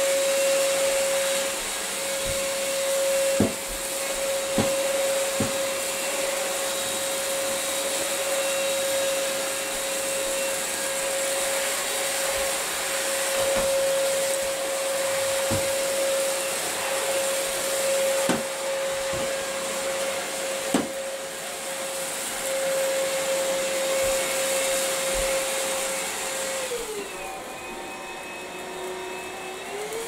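BlitzWolf BW-AR182 cordless stick vacuum running with a steady motor whine and rushing air as its floor brush is pushed over a carpet rug. There are a few sharp clicks along the way. Near the end the whine drops lower for about three seconds, then climbs back up.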